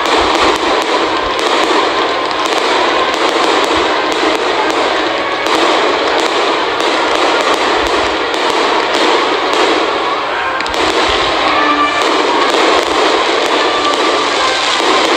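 Aerial fireworks bursting overhead: a dense, continuous crackling with scattered low thumps.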